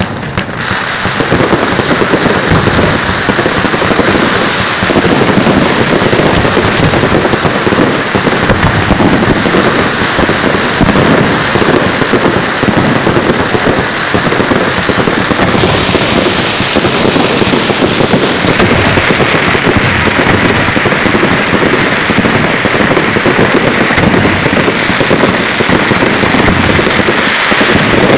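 Fireworks going off close by in a dense, unbroken barrage of overlapping crackles and bangs, very loud throughout. It starts abruptly just after the beginning and carries on without a pause.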